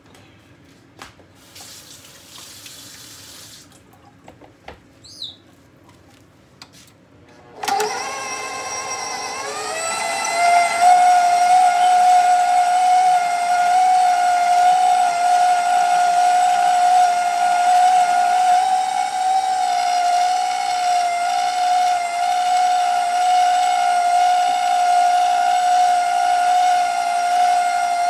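KitchenAid stand mixer motor driving its food grinder attachment. After a few faint clicks, the motor switches on about eight seconds in, its whine climbs in pitch over a couple of seconds as it comes up to speed, then runs as a steady high hum.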